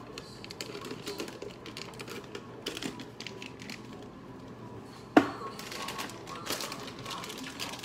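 Small clicks and rattles of a plastic breadcrumb canister being handled and its lid closed, then a single sharp knock about five seconds in as it is set down on a hard surface.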